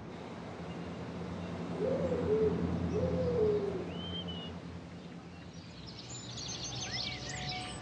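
An owl hooting twice, each hoot gliding up then down, over a low steady hum. Near the end, small birds start singing in quick high twitters.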